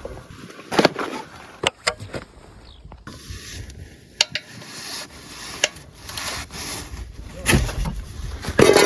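Scattered sharp metallic clicks and knocks of hand tools being worked on a car, with louder clattering near the end.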